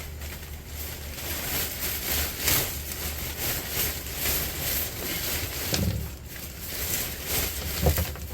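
Rustling and clattering of scrap copper wire and copper pieces being handled and sorted, with a few louder knocks near the end, over a steady low hum.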